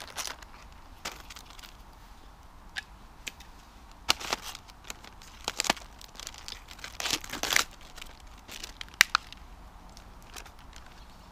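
Plastic packet of diced stewing meat being cut, torn open and crinkled by hand, in short bursts of rustling, the longest about seven seconds in. A log fire crackles alongside with a few sharp pops.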